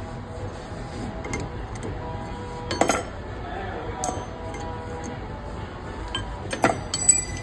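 A few sharp metallic clinks and taps from parts of a bench brake lathe being handled and adjusted: one about three seconds in, another a second later, and a louder cluster near the end, over a faint steady hum.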